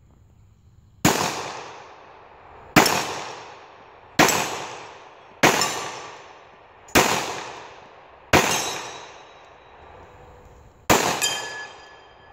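Seven single pistol shots from a Dan Wesson Valor 1911, fired at a deliberate pace about one and a half seconds apart with a longer pause before the last, each echoing away. A metallic ring follows the last shot, a steel plate being hit.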